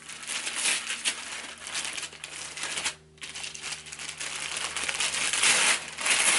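Tissue paper crinkling and rustling as it is pulled and torn open around a wrapped handbag, with a short lull about halfway and louder rustling near the end.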